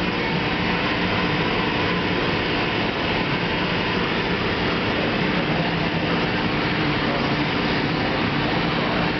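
Powder-coating booth running: the extraction fan and the powder spray gun's compressed air make a steady, even noise with a faint low hum.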